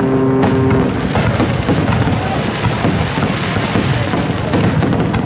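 Aerial firework shells bursting in a dense, continuous barrage, a low rumble overlaid with many rapid pops and crackles.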